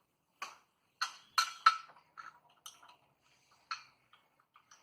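Hard clicks and knocks of a screw and small bushing being handled and fitted into a drill stand, about seven of them, the loudest clustered between one and two seconds in.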